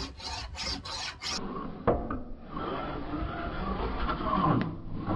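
A steel file scraping along the rails of a chainsaw bar, held square in a homemade jig to dress the bar flat, the bar he blames for his mill cuts diving into the wood. A few quick strokes, then steadier rasping, with a sharp click about two seconds in.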